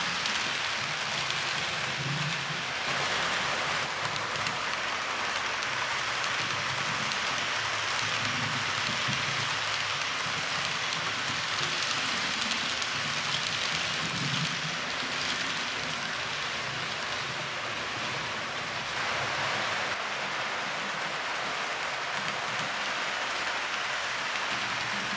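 H0-scale model passenger train running on its track: a steady rushing rattle of small metal wheels rolling over the rails, with soft low rumbles coming and going.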